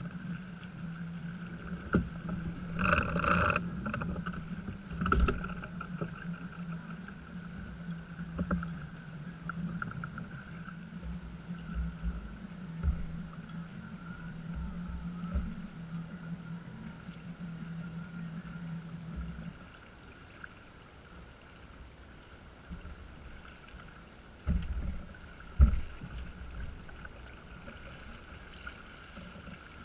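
A small sailboat under way: water washing along the hull, with a steady low hum that cuts off abruptly about two-thirds of the way through. A few short knocks on the boat stand out, the loudest near the start and near the end.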